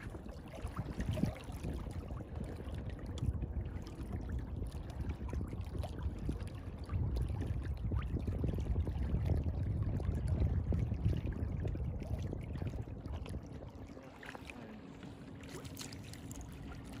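Small waves lapping and splashing against a boat, with a low rumble of wind on the microphone that grows heavier in the middle.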